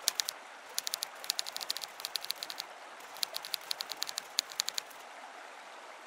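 Typewriter-style typing sound effect: rapid key clicks in short bursts that stop about five seconds in, over a faint steady hiss.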